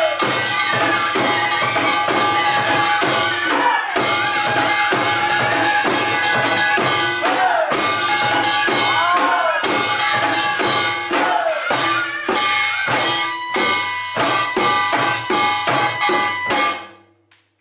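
Korean traditional music for the Jindo drum dance (Jindo bukchum): a buk barrel drum beaten in a fast, driving rhythm with two sticks, over ringing percussion and a sliding melody. The music stops abruptly near the end.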